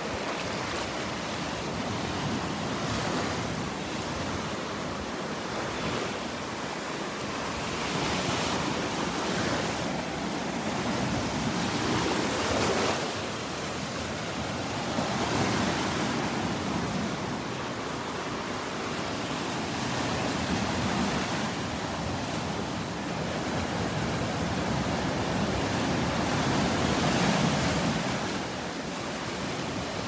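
Surf breaking and washing onto the beach, swelling and easing every few seconds, with wind on the microphone.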